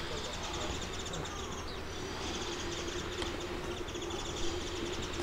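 Outdoor ambience: rapid, high-pitched chirping repeats throughout over a steady low hum and a faint background hiss.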